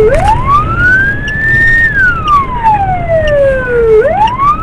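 Police car siren wailing: its pitch climbs over about two seconds, holds briefly, then slides slowly back down, starting a new rise about four seconds in. A low rumble runs underneath.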